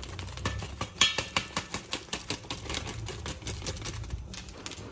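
A metal spoon clicking and scraping against a cooking pot as soup is stirred. The taps are irregular and come several a second, with the loudest about a second in, over a low steady hum.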